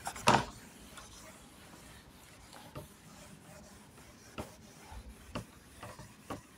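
Faint rubbing of a whiteboard duster wiping marker writing off a whiteboard, with a few light knocks scattered through it.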